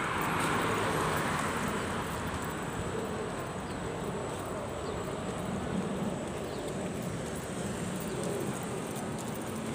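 City road traffic: a car passes in the first second or two, over a steady background of traffic.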